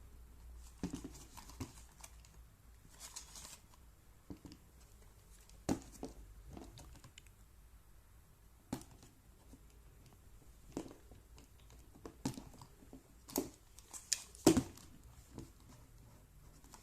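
Irregular clicks and taps from objects being handled, with a short stretch of crinkling about three seconds in; the loudest knocks come near the end.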